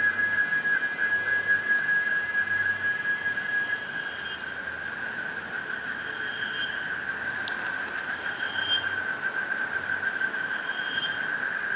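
Cicadas (chicharras) singing in a steady, high, continuous drone, with a fainter higher tone that swells and fades about every two seconds.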